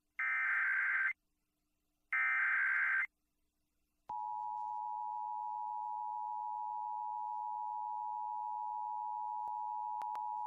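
Emergency Alert System signal over FM radio: the second and third of the three SAME digital header bursts, each a harsh one-second data screech. About four seconds in, the two-tone EAS attention signal (853 and 960 Hz) starts and holds steady.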